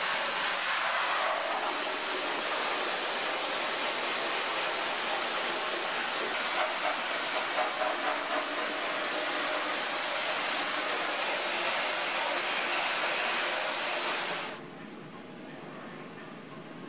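Hot chemical pressure-washer jet spraying an acid-stripped alloy wheel in a wash booth, rinsing off the stripping acid: a steady hiss of water spray that stops suddenly about fifteen seconds in, leaving a quieter background.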